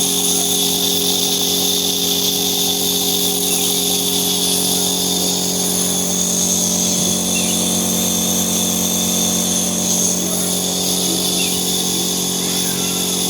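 A motor-driven machine running at a steady speed: an even hum made of several constant tones, with a high whine above it.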